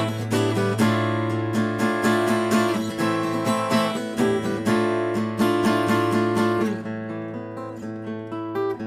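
Background music: a strummed acoustic guitar playing at a steady beat, turning softer near the end.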